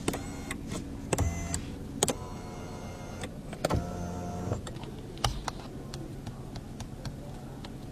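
Small electric motors in a Lexus LX700h whirring in several short runs, each starting and stopping with a click, like power windows or power seats moving.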